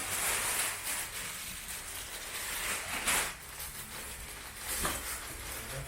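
Rustling and crinkling of the packaging around a new car part being unboxed, with a couple of sharp knocks about three and five seconds in.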